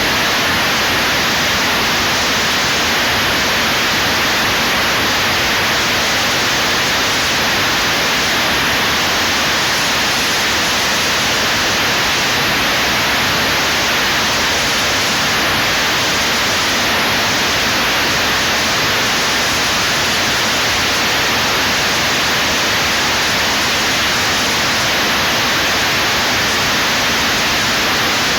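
Steady, loud static-like hiss that does not change.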